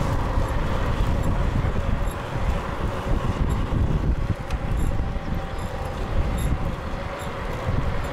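Wind buffeting the microphone of a bike-mounted action camera while riding along a paved highway, with a steady rumble of tyres on asphalt underneath.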